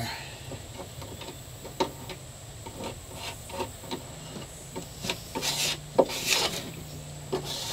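A spreader blade scraping and tapping on a fiberglass hull in short strokes, working thickened epoxy into a small screw hole so no air bubble is left in it. There is a sharp click about six seconds in, among a run of brushier scrapes.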